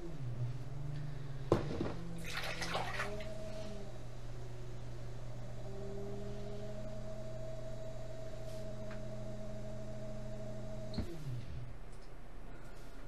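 Electric potter's wheel motor humming and changing speed: its pitch drops at the start, rises again about three seconds in and falls near the end as the wheel slows. A sharp knock comes about a second and a half in, followed by a brief wet rubbing of hands on the clay.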